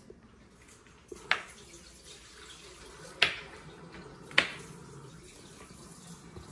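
Kitchen knife cutting vegetables on a plastic cutting board: three sharp knocks of the blade against the board, spaced unevenly a second or two apart.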